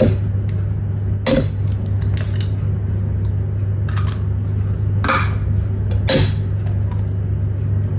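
Eggs being tapped and cracked on the rim of a stainless steel mixer-grinder jar: a handful of short sharp knocks, spaced a second or so apart, over a steady low hum.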